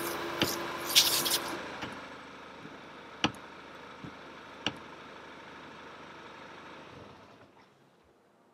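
Windscreen washer spraying through a newly fitted replacement washer unit while the wipers sweep, for about the first second and a half, with a steady pump whine under it. The car then runs with a steady hum and two light clicks, which stops about seven seconds in.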